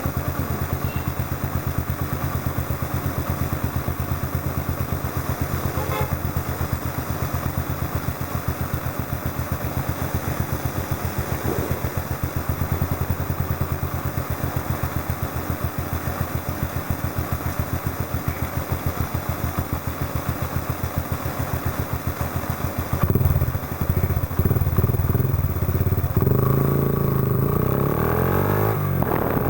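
Yamaha Factor 125's single-cylinder four-stroke engine idling steadily through a Roncar aluminium aftermarket exhaust, an even rapid pulsing. About 23 seconds in it is blipped, and near the end the revs climb as it accelerates.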